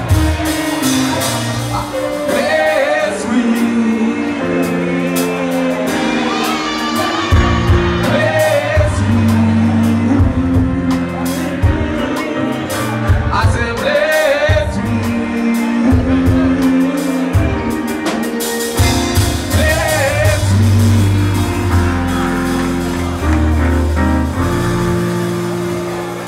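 Live band music with a man singing: a stepping bass line and steady drum beat under the vocal, with electric guitar and keyboard on stage.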